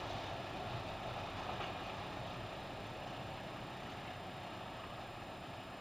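Class 751 diesel locomotive's engine running, a steady noise that slowly fades as the train moves away.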